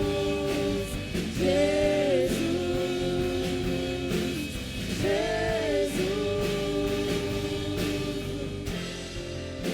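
Church worship band playing with voices singing long held notes of a praise song.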